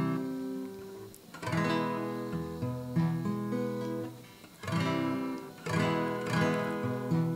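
Acoustic guitar playing a slow chord introduction, each chord strummed and left to ring for a second or so before the next.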